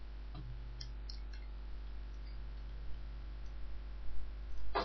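Computer mouse clicking faintly several times over a steady low electrical hum, as vertices are picked one by one. A brief vocal sound comes near the end.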